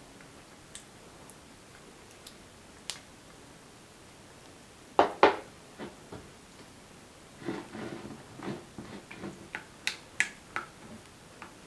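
Silicone spatula working in glass bowls: a few faint clicks, two sharp knocks about five seconds in, then a run of soft scrapes and clicks as mayonnaise and sour cream are stirred together in a glass bowl.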